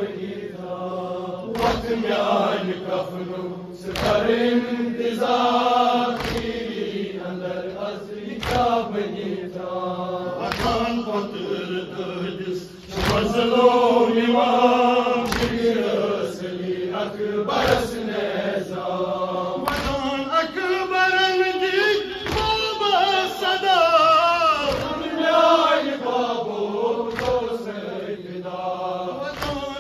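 Nauha lament chanted by a male reciter over a microphone, with a group of men chanting along on long, wavering held notes. A sharp, regular slap of chest-beating (matam) marks the beat about every two seconds.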